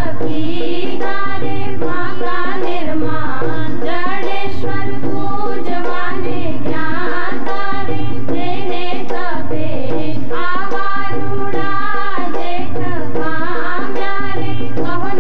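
Background music: a South Asian-style song, a melody sung over hand drums, with a steady low beat about once a second.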